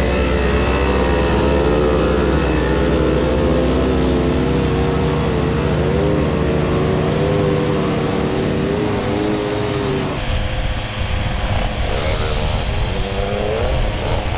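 Small two-stroke moped engines running on the throttle, the note wavering up and down, with other mopeds close by at first. About ten seconds in the steady note drops away and the engine revs up and down in shorter swells.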